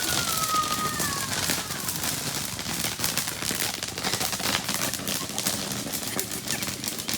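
A string of firecrackers going off, a rapid run of sharp cracks that keeps on without a break, with a brief falling whistle in the first two seconds.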